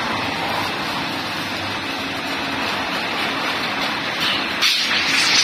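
Electric-motor-driven rotary slitting shear running as a painted steel sheet is fed through its disc cutters, a steady machine hum. Near the end there is a louder scraping rasp of the sheet metal strip.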